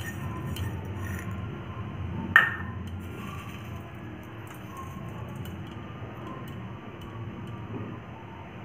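A stainless steel container clinks sharply once against a stainless steel bowl about two seconds in, while crunchy aloo bhujia is tipped into the bowl. A few fainter light taps come just before it, over a steady low background noise.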